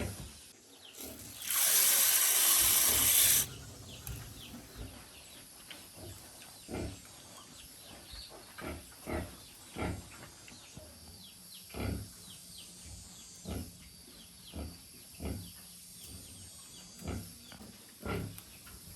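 Pigs grunting in short, separate grunts about once a second, after a loud, harsh noise lasting about two seconds near the start.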